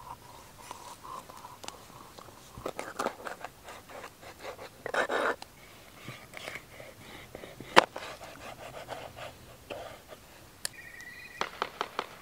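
A large knife cutting a scaled fish into chunks on a plastic cutting board: irregular knocks of the blade against the board and short scraping, crunching strokes through the flesh, with one sharp, loud knock about eight seconds in.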